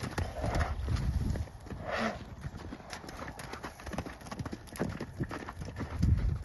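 Hoofbeats of horses running loose: many quick hoof strikes, with heavier low thuds in the first second and a half and near the end.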